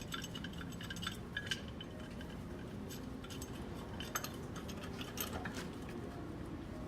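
Scattered light metallic clinks and taps of hand tools and steel gas-pipe fittings being handled, the elbow and nipples ringing briefly when struck; a cluster near the start and more about three to five seconds in, over a low steady hum.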